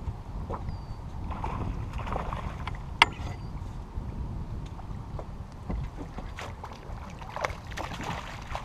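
Water lapping at a small boat's hull with wind on the microphone, and scattered clicks and knocks as a rod and landing net are handled on the deck; one sharp click about three seconds in.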